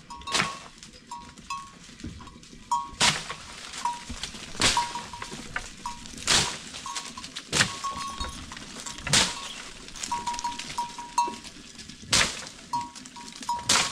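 A long wooden pole striking the branches of a tree overhead, eight sharp strikes about one every one to two seconds, with short high tinkling blips between them.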